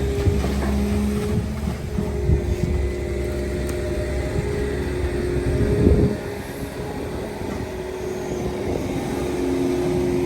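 Long-reach excavator's diesel engine running steadily while it digs, with a short loud knock about six seconds in, after which the engine's low rumble eases.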